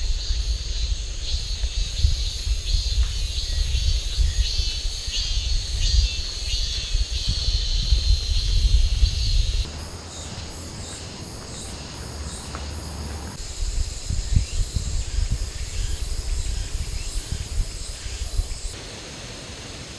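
Summer forest ambience of insects droning steadily in the trees, over a loud low rumble for the first half. The sound changes abruptly about ten seconds in, turning quieter with a thinner, higher insect drone.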